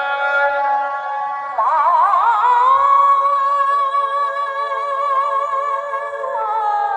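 A sung vocal line with almost no bass played through a DJ loudspeaker system as its vocal test. A wavering phrase with wide vibrato comes in about one and a half seconds in and settles into a long held note, which steps down in pitch near the end.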